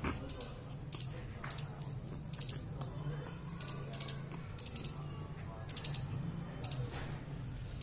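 Small metal jingles from a puppy's collar as two pug puppies tussle: short, light clinks coming irregularly, about every half second to a second, over a steady low hum.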